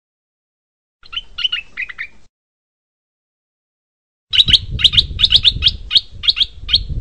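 Stripe-throated bulbul calling: a short phrase of chirpy notes about a second in, then after a pause a quick run of loud, sharp chirps, about four or five a second, through the last few seconds, breaking off abruptly.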